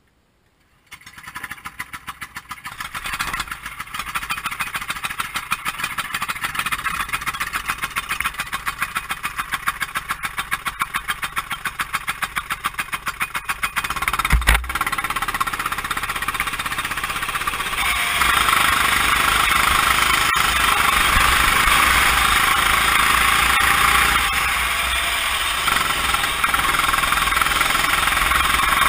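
Kart engine starting about a second in and idling with a rapid, even pulsing beat. A single heavy thump comes about halfway through, then the engine runs steadily louder as the kart drives off onto the track.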